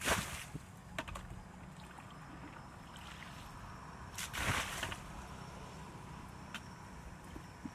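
Muddy water flung from a plastic bucket splashing onto a grassy bank, twice: once right at the start and again about four seconds in, with small knocks and scoops of the bucket in between. This is bailing water out of a ditch.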